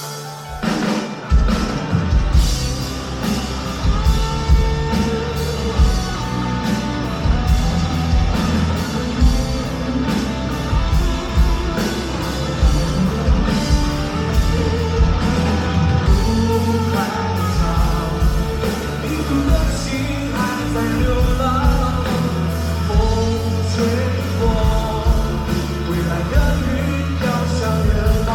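A rock band playing live at full volume: drum kit keeping a steady beat over bass and guitars, the whole band kicking in about a second in.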